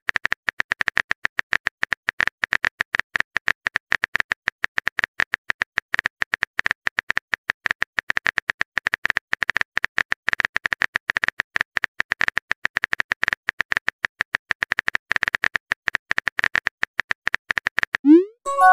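Rapid, steady clicking of a phone keyboard typing sound effect, one click per letter. Near the end comes a short rising swoosh as the message is sent.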